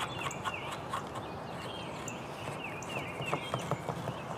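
Birds chirping repeatedly, short falling notes over steady outdoor background noise, with a few faint clicks.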